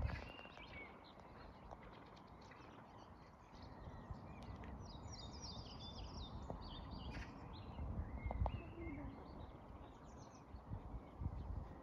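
Small songbirds singing in quick, high chirping phrases, busiest about halfway through, over a constant low rumble of background noise.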